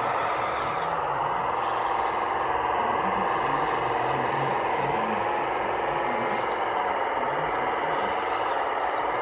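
Electric drive motors and gearing of radio-controlled construction models running, a steady high-pitched whine that wavers slightly in pitch, over a low uneven rumble.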